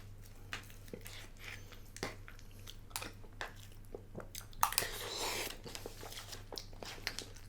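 A spoon stirring and clicking in a microwaved frozen-dinner tray, with close-up chewing, over a steady low hum. There is a second-long noisy rush about five seconds in.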